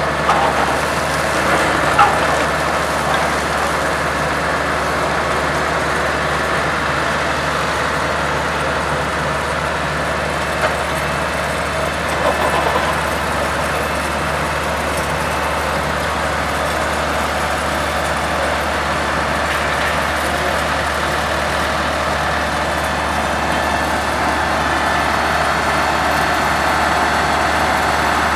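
Engines of vintage construction machinery, a cable-operated shovel excavator and the machines around it, running steadily as the shovel works gravel beside a truck.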